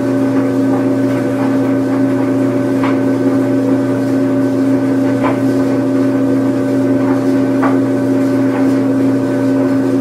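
Washing machine running: a steady motor hum with several constant tones, and a few short light knocks about three, five and seven and a half seconds in.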